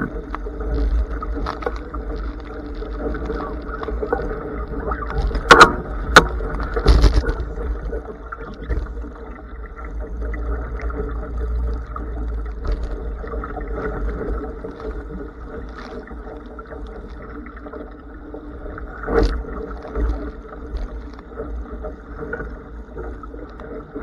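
Wind and rushing water on a Blaze sailing dinghy under way in strong gusts: a steady, muffled rumble with sharp knocks, three close together about six seconds in and one more near nineteen seconds.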